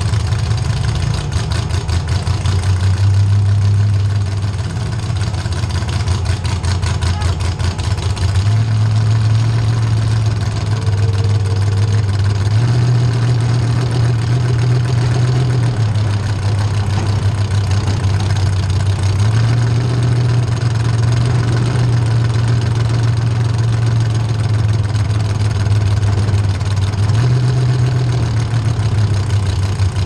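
Demolition derby car engines running in a steady low drone, their pitch stepping up and down every few seconds as the throttles are raised and eased.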